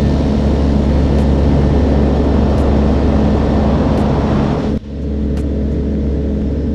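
Vans RV-12's Rotax 912 four-cylinder engine and propeller at takeoff power on the takeoff roll, a loud steady drone with several pitched hums. A little under five seconds in, the sound breaks off abruptly and resumes duller and a little quieter.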